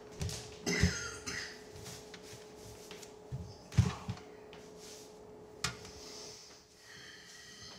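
A man moving about a small bathroom and sitting down on a toilet: a few soft knocks and bumps, the loudest a little before halfway, with rustling of clothing. A faint steady hum runs underneath.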